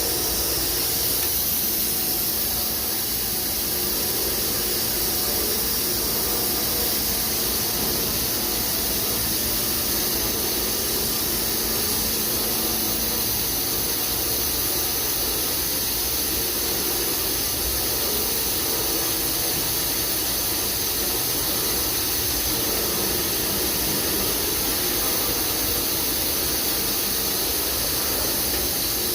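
Daito DNF-1050 CNC beam drill line running: a steady machine noise with a strong hiss. A faint low hum under it stops about halfway through.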